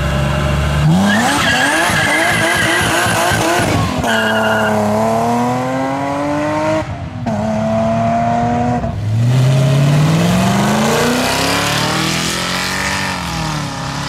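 BMW E36 race car's engine launching hard and accelerating through the gears: the pitch rises on each gear and drops at each upshift, about four and seven seconds in. A high tyre squeal accompanies the launch.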